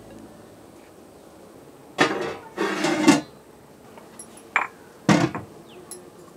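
A metal lid clanks and scrapes into place on a large metal cooking pot, then a heavy stone pestle is set down on the lid with a click and a knock. The lid is being weighted to seal the biryani pot for slow dum cooking.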